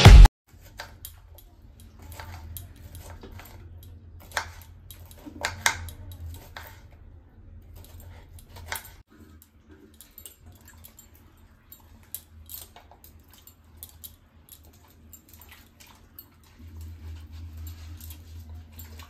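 Knife slicing bitter gourd on a wooden chopping board: light, scattered taps over a low steady hum, with a dog barking a few times.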